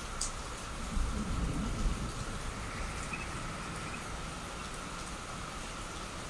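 Heavy rain falling steadily, with a brief low rumble from about one to two seconds in.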